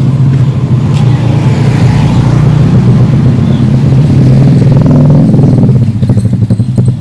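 Motor vehicle engine running close by, steady and loud, swelling and then easing off about four to five seconds in.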